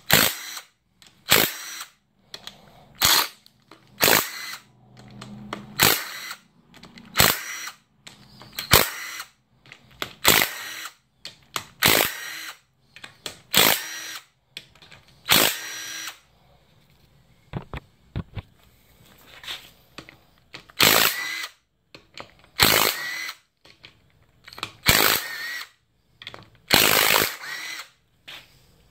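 Cordless drill spinning out the 10 mm camshaft bearing-cap bolts on a 1.6L GDI cylinder head, in more than twenty short runs of about half a second each, roughly one a second, each with a high motor whine.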